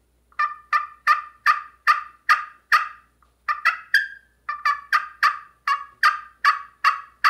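Handmade pot-style friction turkey call played with a wooden striker, giving two runs of short yelping notes, about two and a half a second, with a brief break and a few quicker notes about three and a half seconds in.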